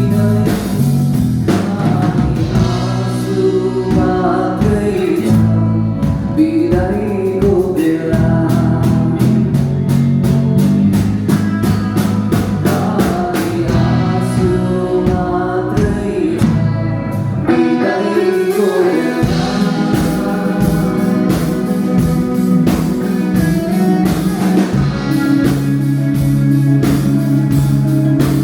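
A band playing live with a singer: a sung melody over guitar and a steady beat.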